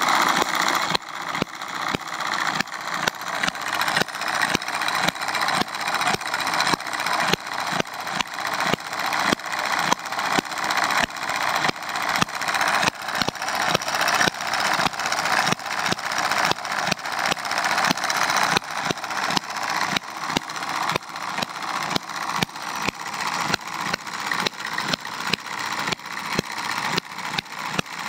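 Eachine hit-and-miss model engine running steadily on benzine, a steady rhythm of sharp firing pops over the continuous clatter of its moving parts.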